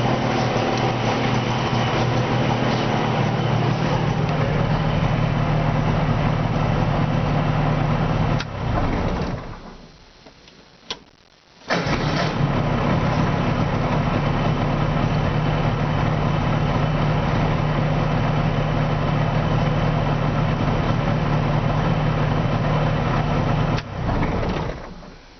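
Subaru 360 Young's 356 cc two-stroke twin idling steadily, running on both cylinders after a rebuild. It is shut off about eight seconds in, and a click comes just before it is started again and catches at once. It then idles steadily until it is shut off near the end.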